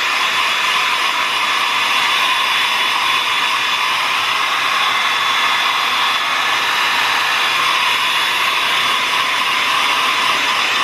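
Handheld hair dryer running steadily, blowing air over a Shih Tzu's coat: a constant rush of air with a thin, steady high whine.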